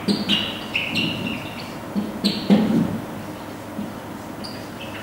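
Dry-erase marker squeaking on a whiteboard as a word is written: a run of short, high squeaks, each held at a steady pitch, mostly in the first few seconds, with one brief squeak near the end.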